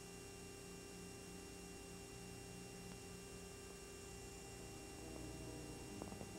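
Faint steady electrical hum with several thin steady tones, from a VHS tape starting to play back before the film's soundtrack comes in. A few faint clicks come near the end.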